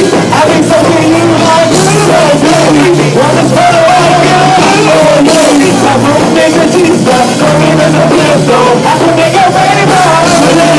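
Live band playing with singing at the microphones over drums, keyboard and electric guitar, very loud and continuous.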